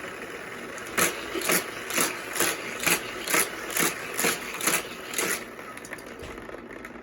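Hot Wheels Criss Cross track's battery-powered booster whirring steadily, with a sharp clack about twice a second as a toy car laps around the track through the booster; the clacks stop after about five seconds while the booster keeps running.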